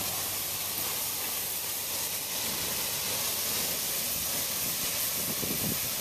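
Steady hiss of a fire hose's water spray jetting from the nozzle onto a burning debris pile, with steam coming off the fire.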